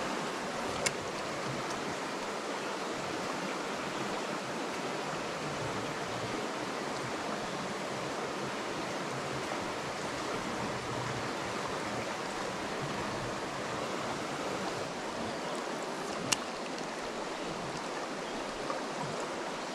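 Shallow mountain trout creek babbling over rocks, a steady rushing. Two sharp clicks, one about a second in and a louder one near the end.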